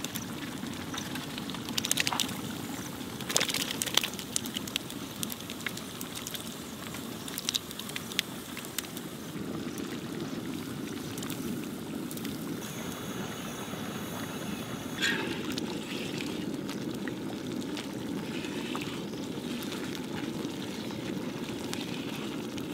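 Thick tamarind-tomato masala gravy bubbling in a large iron kadhai over a gas burner, with a steady low rushing noise throughout. Boiled eggs are dropped into the gravy in several wet plops and splats, the loudest about two and four seconds in.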